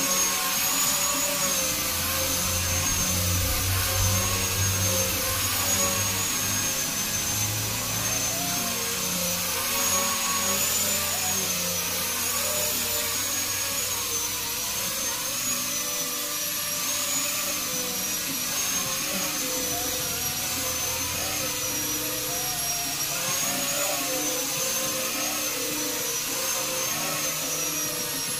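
Angle grinder with a sandpaper disc running steadily while sanding a wooden cabinet top, its motor whine wavering slowly in pitch, with the rasp of the abrasive on the wood beneath it.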